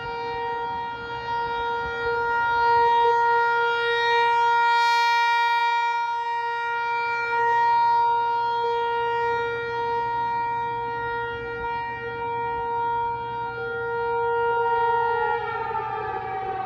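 American Signal Corporation T128 outdoor tornado warning siren sounding a steady alert: two tones held together, swelling and fading in loudness every few seconds. About fifteen seconds in, the pitch starts to fall as the siren winds down.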